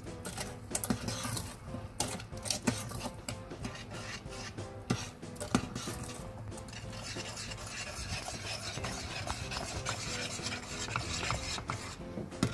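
Metal spoon stirring a thick custard mixture in a stainless steel pot, scraping and clicking against the pot's sides and bottom as the sugar is stirred in. Separate clicks and scrapes at first, then a steadier continuous scraping for the last few seconds.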